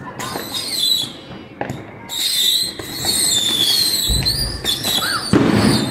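A firework battery of thousands of small whistling rockets (babypijlen) firing: many high, wavering whistles overlap, with sharp pops in between. A heavier bang comes near the end.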